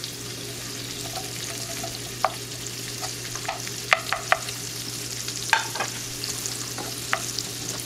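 Sliced onions sizzling steadily in hot butter and oil in a cast-iron skillet while a wooden spoon stirs them, with a few sharp clicks scattered through. The onions are at the start of sweating over medium heat.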